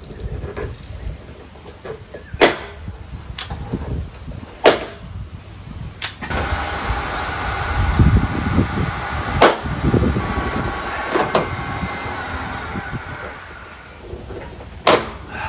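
Hand pop rivet gun setting aluminium sealed rivets: a sharp snap every couple of seconds as each rivet's mandrel breaks off. A steady background noise rises and fades in the middle.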